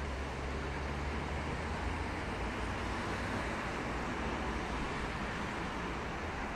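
Steady city traffic noise with an even low rumble, no single event standing out.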